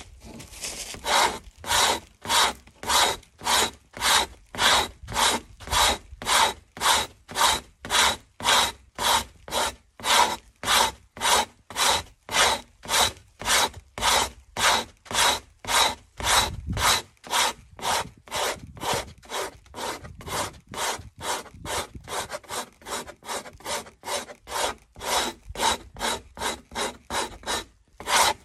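Hand scraper shaving a frozen moose calf hide laced on a frame, in quick rhythmic scraping strokes about two a second. This is frost scraping: the blade shaves off the frozen water held in the hide to thin it.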